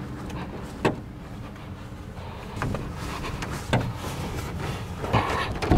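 A canoe carried overhead on a man's shoulders while he walks across grass: footsteps, with a few scattered knocks and creaks from the hull and his grip. A steady low hum runs underneath.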